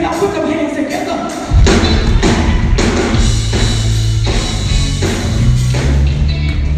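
Live gospel band music. About a second and a half in, the drums and the low bass come in loudly with a steady beat, over a held voice or keyboard line.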